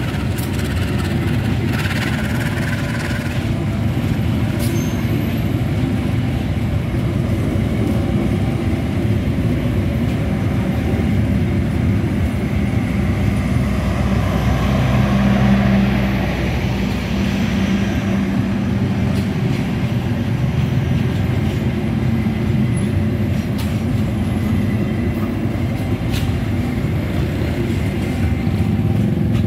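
Passenger train coaches rolling past close by, a steady rumble and clatter of wheels on the rails.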